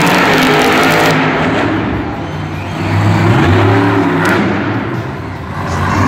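Grave Digger monster truck's supercharged V8 engine running and revving as it drives over the dirt. The revs rise about three seconds in.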